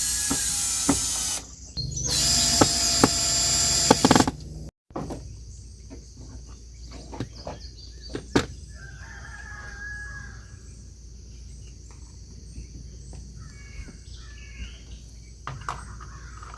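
Power drill running in two spells of about two seconds each, mounting hardware on a wall. After a cut come steady insect drone and scattered clicks, a rooster crowing about nine seconds in, and more bird calls near the end.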